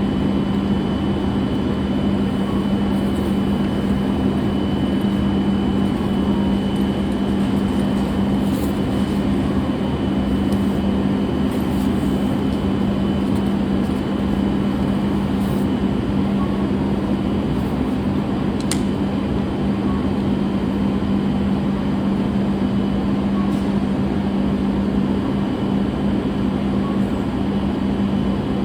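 Steady interior noise of a moving vehicle, with a constant low hum and a faint high whine, and a single brief click about two-thirds of the way through.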